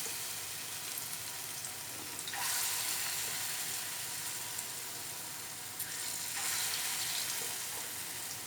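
Dal bora (lentil fritters) frying in oil in a frying pan on a lowered flame, a steady sizzling hiss that swells louder twice, about two and a half seconds in and again around six and a half seconds.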